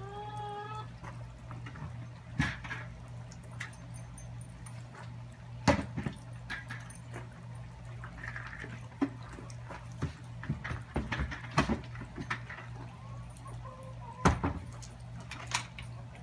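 Backyard chickens: a hen gives a short rising call, then sharp pecks and knocks come scattered through the rest, with another faint call near the end. A steady low hum runs underneath.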